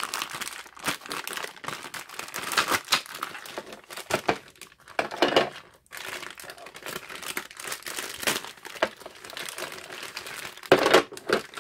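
Thin clear plastic bags crinkling and rustling in the hands as they are handled and opened, in dense irregular crackles.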